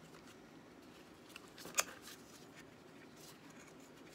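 Light handling sounds, faint ticks and rustles, with one sharp click about two seconds in.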